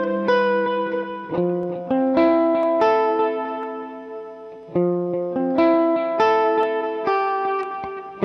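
Greco EG-135 electric guitar played through an amplifier: a slow phrase of single picked notes and chord tones, each left to ring and fade, with one long sustained decay in the middle before the playing picks up again about five seconds in.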